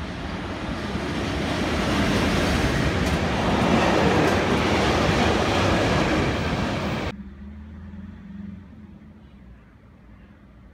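A freight train of Swiss Post container wagons hauled by an SBB electric locomotive passes close by at speed, its wagon rumble and rattle building to a loud peak. It cuts off abruptly about seven seconds in, leaving much quieter background with a faint low hum.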